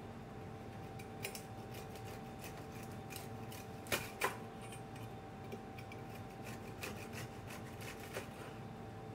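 Serrated bread knife sawing back and forth through the crisp crust of a baked sesame and almond biscotti log on a wooden cutting board: a run of short scratchy strokes, with two louder clicks just after four seconds in.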